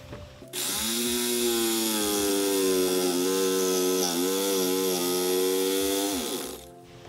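Corded electric jigsaw cutting through a boat's floor: the motor starts about half a second in, runs steadily with its pitch sagging slightly under the load of the cut, then winds down and stops near the end.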